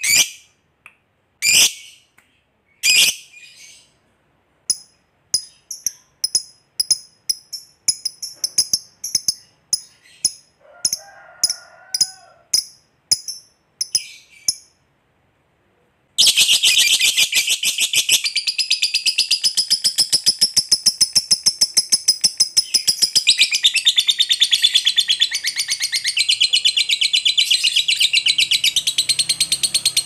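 Lovebird calling: a few loud single shrieks, then a run of short high chirps about one a second. About halfway through it breaks into a long, unbroken, rapid chattering trill, the prized 'ngekek panjang' long chatter.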